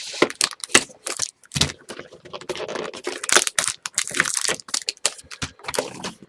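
Foil-wrapped trading card packs and their cardboard box being handled as the packs are taken out: a dense run of crinkles, rustles and small clicks.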